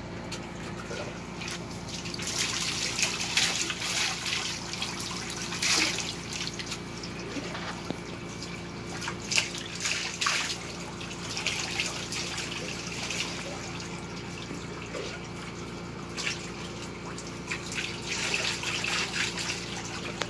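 Water poured from a small container over a dog's back, splashing down its coat into a plastic paddling pool, in several separate pours with pauses between.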